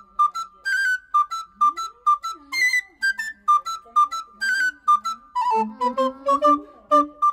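Background music: a bouncy melody of short, detached high notes, with a lower accompanying line joining about five and a half seconds in.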